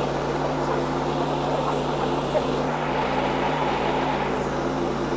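Wood-Mizer LX55 bandsaw mill running steadily under load as its band blade cuts through a hard hickory log. The owner says the mill is struggling with this wood and that the cut is making waves.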